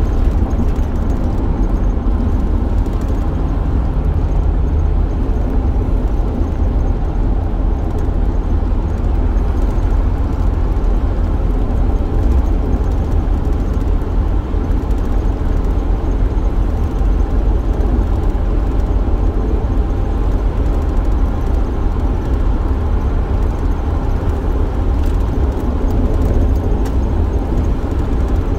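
Steady low rumble of a van driving, engine and road noise heard from inside the cabin.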